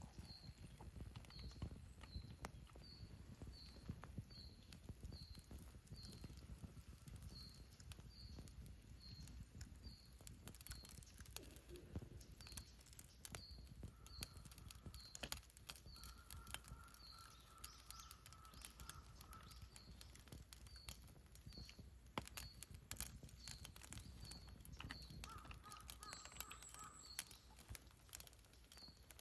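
Wood campfire crackling faintly, with scattered pops and one sharper snap a little after the middle. In the background a bird repeats a short high chirp about twice a second, with a few other bird calls later on.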